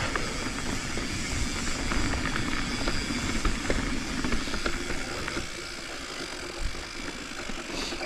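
Full-suspension Commencal mountain bike rolling down a dirt trail: tyres running over dirt and roots, with scattered clicks and rattles from the bike and wind buffeting the chin-mounted camera's microphone. The noise eases a little over the last few seconds.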